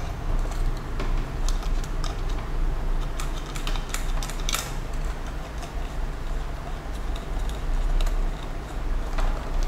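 Light, irregular clicks and taps from handling a plastic-cased HDMI-to-RF modulator while a cable is fitted into its RF output connector, over a steady low hum.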